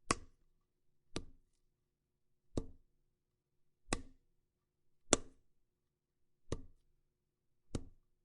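Seven sharp blows struck one by one on a foley prop recorded for gore effects, about one every 1.3 seconds. Each is a short hit with a brief tail, and the fifth is the loudest.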